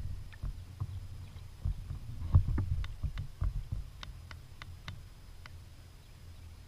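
Irregular knocks and thumps on a kayak's hull, the loudest about two and a half seconds in, with a scatter of small sharp clicks from about three to five seconds in.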